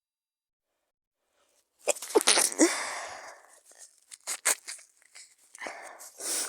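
A person sick with a cold-like illness stifling a sneeze, with sharp sudden bursts about two seconds in. A few faint clicks follow, then a breathy rush of air near the end.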